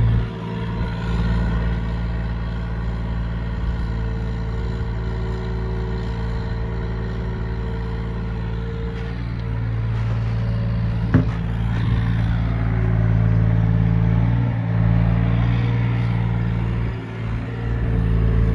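Hyundai 35Z-9 mini excavator's diesel engine running steadily as the machine digs, growing a little louder about ten seconds in. A single sharp clank comes about eleven seconds in.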